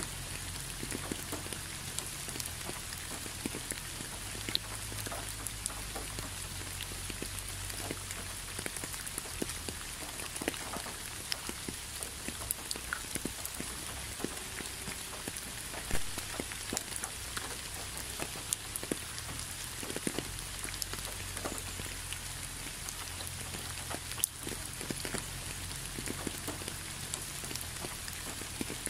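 Gentle rain falling on concrete: a steady hiss with scattered sharp drop ticks, one louder drop about halfway through.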